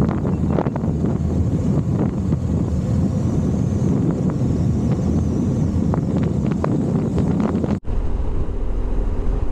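Motorcycle riding at road speed, heard mostly as wind buffeting on the camera microphone over a low engine and road rumble. About eight seconds in the sound breaks off abruptly and resumes steadier, with less wind and a deeper rumble.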